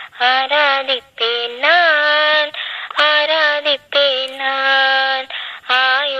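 A high voice singing a wordless melody of held notes, with short slides in pitch between them and brief breaks, part of a Tamil Christian devotional song.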